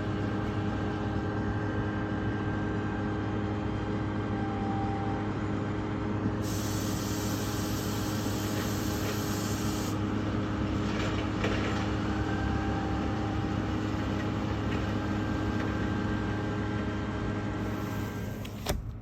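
Steady industrial machinery noise from a factory at night: a constant low hum with several steady tones over it. About six seconds in, a high hiss joins for some three seconds, then stops.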